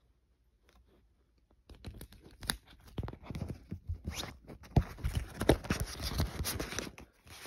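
Clear plastic record sleeve crinkling and rustling as a vinyl picture disc is handled in it, starting about two seconds in, with sharp crackles and several louder clicks.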